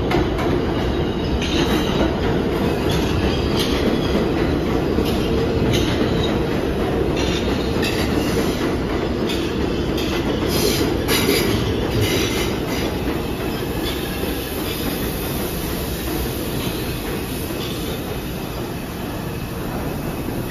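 New York City subway 6 train pulling into the station: a run of sharp clicks as the wheels cross rail joints, then steadier running noise that eases as the train slows.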